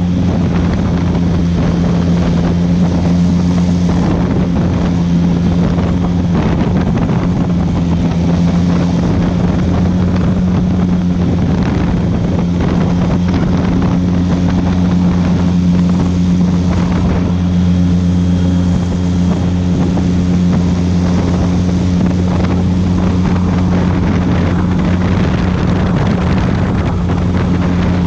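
Airboat's engine and propeller running at a steady, loud drone, with wind noise on the microphone.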